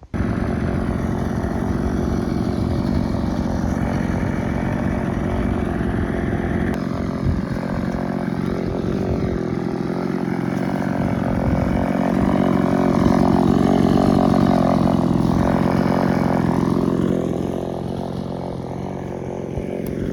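Two-stroke EFCO chainsaw running steadily at high revs in an Alaskan mill, ripping a slab lengthwise off a log. It grows louder a little past halfway and drops back a few seconds before the end.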